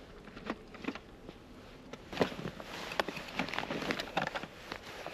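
Handling noise: irregular clicks, rustles and crunches as camping stove gear is unpacked and set up on packed snow, busier from about two seconds in.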